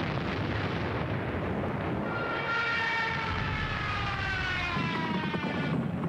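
Propeller aircraft engine drone that slides slowly down in pitch as it passes, starting about two and a half seconds in, over a steady low rumble.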